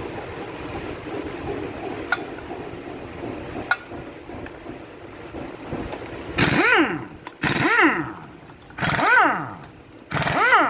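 A small motor revs up and back down four times in quick succession, each a short rising-then-falling whine. Before that there are a steady low hum and two sharp clicks.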